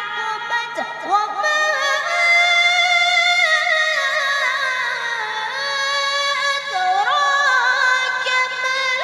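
A boy reciting the Quran in the melodic tajweed style, holding a long ornamented phrase that slowly falls in pitch and then rises again near the end.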